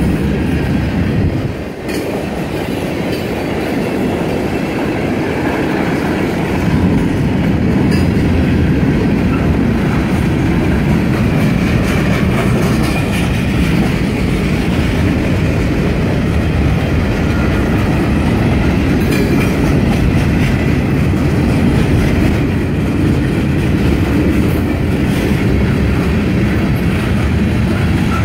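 Freight cars of a long mixed freight train rolling past close by: a steady rumble of steel wheels on the rails with clickety-clack over the rail joints. A few sharp clicks stand out.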